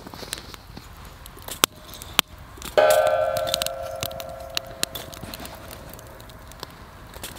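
A piece of metal cookware is knocked once about three seconds in and rings with a clear, bell-like tone that fades away over several seconds. Before it come scattered small clicks and crackles.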